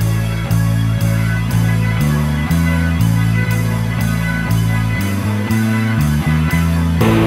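Instrumental background music with guitar and a steady beat, its low notes changing about twice a second. Just before the end it moves into a new section.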